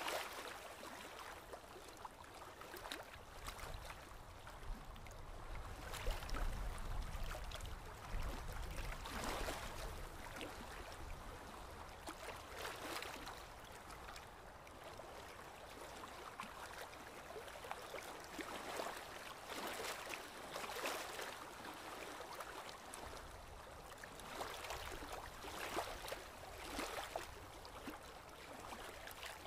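Paintbrush bristles scratching and dabbing on canvas with acrylic paint, in an irregular run of short strokes.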